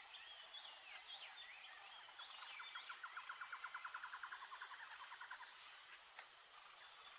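Faint nature ambience: birds chirping and a rapid pulsing trill lasting about three seconds in the middle, over a steady high insect buzz and soft hiss.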